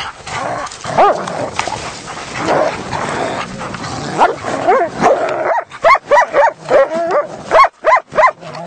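A pack of hunting dogs scuffling over a caught animal, with a few whines, then from a little past halfway a rapid string of short, sharp barks, two or three a second.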